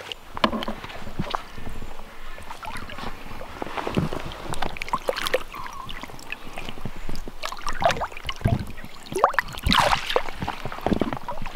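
Shallow river water splashing and sloshing irregularly as a landing net is dipped in and a chub is released. The heaviest splashes come about nine to ten seconds in.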